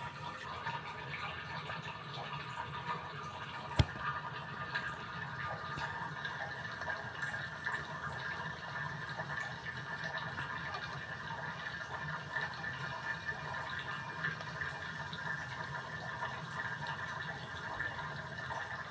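Steady hiss of a lit gas stove burner heating an opened tin can, with a single sharp click about four seconds in.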